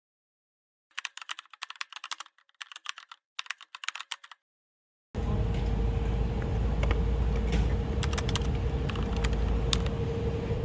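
Rapid clicking like keyboard typing, in three quick runs starting about a second in, over an otherwise silent track. From about five seconds in, a car running: a loud, steady low rumble with a constant hum.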